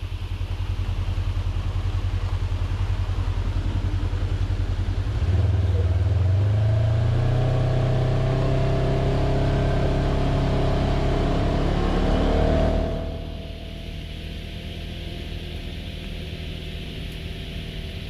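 Motor vehicle engine running while driving, with a steady low rumble. The engine note rises about five seconds in as it accelerates, holds, then drops away suddenly near the thirteen-second mark, leaving a quieter rumble.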